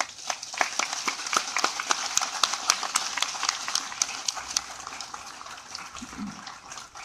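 Crowd applauding, dense at first and thinning out over the last couple of seconds.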